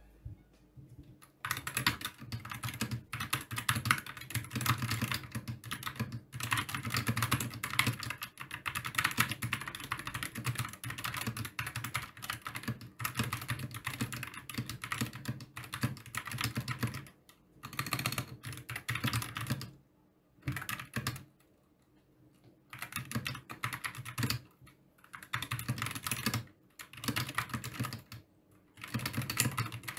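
Typing on a Gamakay MK61 60% mechanical keyboard with Gateron Optical Yellow linear switches and PBT pudding keycaps: fast runs of keystrokes broken by short pauses, with a longer pause about 20 seconds in.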